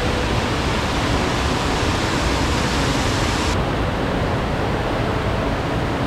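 Mountain stream rushing over a rocky cascade: a loud, steady wash of white water. About halfway through, the hissing top of the sound drops away and the rush goes duller.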